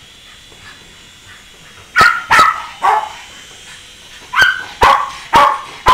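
Small dog barking excitedly in two quick runs: three sharp barks about two seconds in, then another three or four a couple of seconds later.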